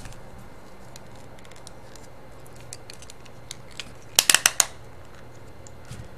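Small plastic dashcam rear camera being handled and tilted on its mount: a few faint clicks, then a quick run of about five sharp clicks a little after four seconds in.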